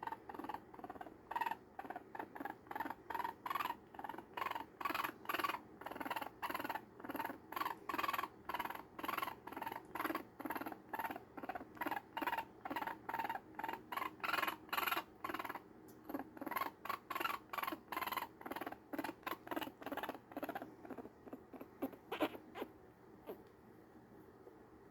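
Week-old baby raccoon suckling at a bottle: a steady rhythmic smacking, about two to three sucks a second, which stops near the end.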